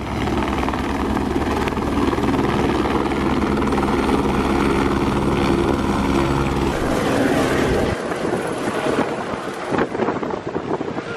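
A light helicopter's rotors and turbine running, a loud steady beating drone. About seven seconds in the low drone falls away into a rushing rotor noise with gusts of wind on the microphone as the helicopter flies off.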